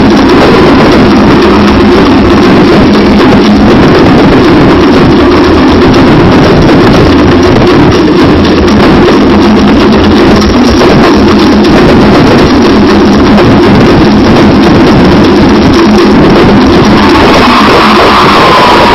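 Loud, overloaded and distorted recording of Cook Islands dance drumming, a fast unbroken drum rhythm.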